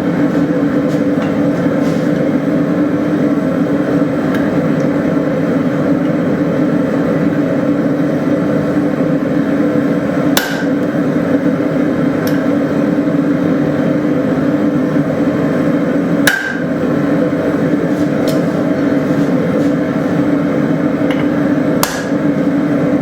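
Steady, loud hammer forging of hot leaf-spring steel: a continuous dense run of blows with no break, and a few sharper metallic clinks about halfway through, two-thirds through and near the end.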